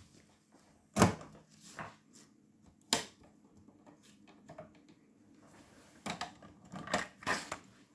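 Sharp mechanical clicks and clunks from the controls of a Sansui SC-3300 cassette deck being operated after playback: one loud click about a second in, another near three seconds, then a quick run of several clicks near the end.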